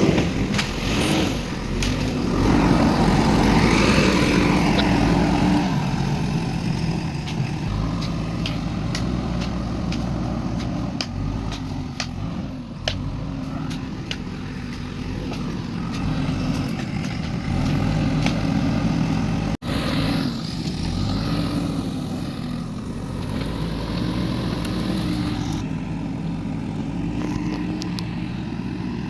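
Heavy earthmoving machine's engine running and working, its pitch rising and falling with the load, with scattered metallic clanks.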